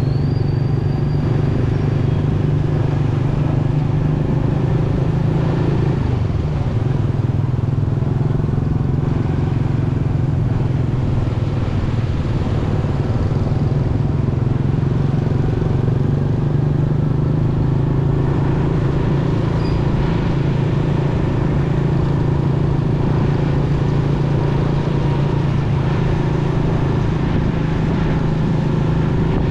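Motorcycle engine running at a steady speed while riding, a constant low hum with road noise over it.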